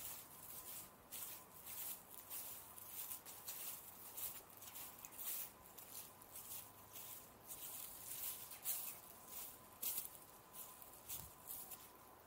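Footsteps on grass and dry leaves at a walking pace, about two soft crunches a second, with a faint steady tone behind them.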